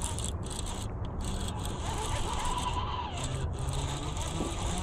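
Baitcasting reel being cranked as a hooked bass is reeled in, a steady mechanical whirring from the reel's gears.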